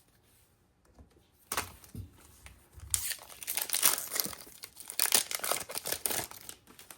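A foil Pokémon booster pack wrapper being torn open and crinkled, quiet at first, then a dense stretch of crackling and tearing through the second half.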